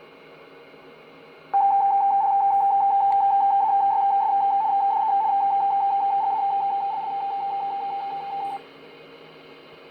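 Strange signal received on 27.555 MHz through a Superstar 3900 CB radio's speaker: a rapidly pulsing single tone that starts suddenly over the receiver's steady static hiss, lasts about seven seconds and cuts off abruptly.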